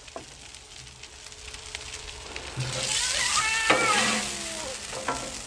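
Cooking oil sizzling on a hot Blackstone steel flat-top griddle as it is spread with a metal spatula, with a few scrapes and taps of the tool. The sizzle swells about halfway in.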